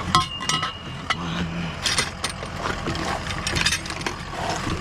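Clinks and knocks of scrap items being handled and shifted in a junk pile, with a short metallic ring near the start.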